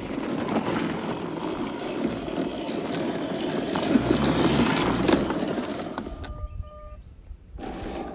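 WPL C34 1/16-scale RC crawler driving over sandy dirt: tyres crunching and scraping, with clicks and clatter from the drivetrain. The sound drops out sharply about six seconds in and returns just over a second later.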